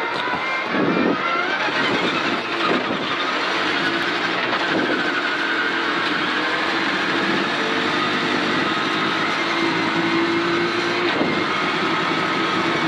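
Rally car engine heard from inside the cabin, accelerating hard with its pitch rising over the first couple of seconds, then holding a steady high note at speed. Tyre and gravel noise runs underneath.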